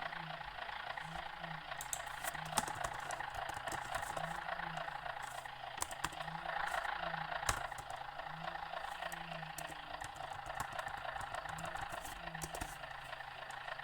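Inside a MAZ-105 articulated city bus under way: the engine and drivetrain hum steadily with a slowly wavering pitch, while the body gives off scattered clicks and rattles.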